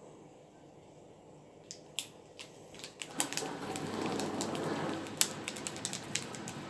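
Dishwasher beginning its wash cycle: a few clicks, then about three seconds in water starts rushing and spraying inside, a steady noise with scattered clicks and rattles over it.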